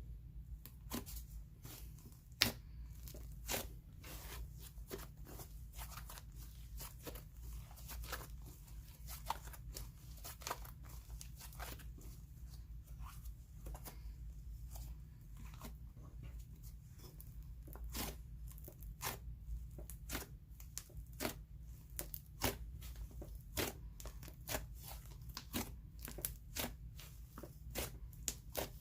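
Inflated, airy slime being stretched and squeezed by hand, giving irregular sharp sizzly crackles and pops, a few a second, as air bubbles in it burst. A steady low hum runs underneath.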